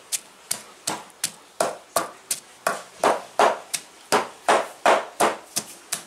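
Pestle pounding in a mortar with steady, even strikes, about three a second, crushing garlic, coriander and ginger into a marinade paste.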